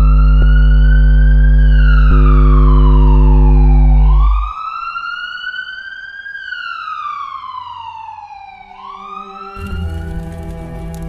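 A siren wailing in slow rises and falls, roughly four seconds per cycle, over a loud, low, steady drone that cuts off abruptly about four and a half seconds in. Near the end, a denser music bed comes in under the wail.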